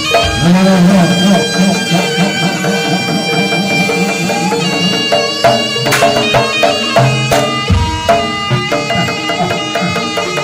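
Jaranan Kedirian ensemble music: a reedy shawm (slompret) holding a sustained melody over hand-drum (kendang) rhythms and gong-chime strokes, with sharp percussion hits about six and seven seconds in.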